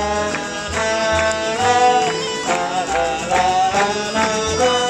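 Live acoustic folk band playing a lively tune on bagpipe, fiddle, trombone, acoustic guitars and double bass, with sustained melody notes over a steady low bass.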